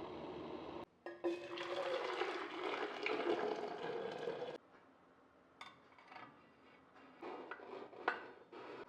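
Water running into a glass vase for about three and a half seconds, then stopping abruptly, followed by a few light knocks and clinks as the vase is handled.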